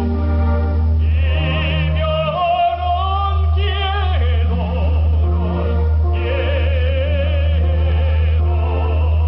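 A man singing in an operatic style with wide vibrato into a handheld microphone, over instrumental accompaniment.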